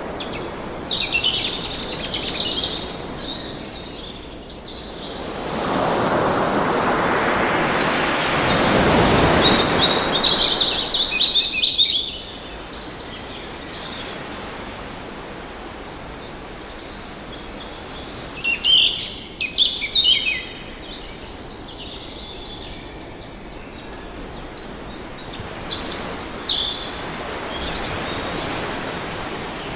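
Songbirds chirping and singing in several bouts of quick, high calls over the steady wash of ocean waves. A large wave swells and breaks about a third of the way in, and a smaller one comes in near the end.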